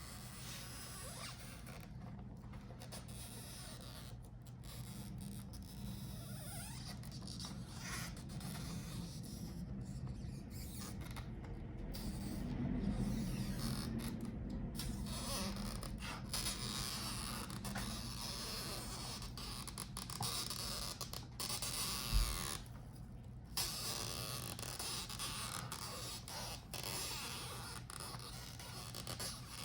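Adhesive pull-out strips being stretched and peeled from behind a laptop's LCD panel: a continuous faint creaking and scraping. A short thump comes about three-quarters of the way through.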